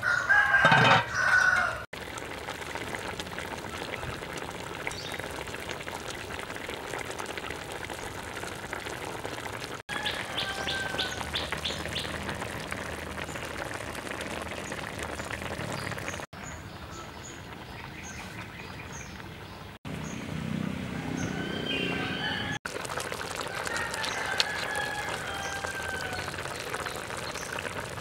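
A large pot of fish curry simmering, its bubbling a steady hiss, with chickens clucking and small birds chirping in the background. A short loud sound opens it.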